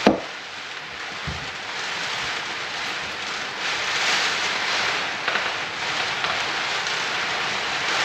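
Steady hiss of heavy rain, swelling louder about halfway through. A single sharp click right at the start.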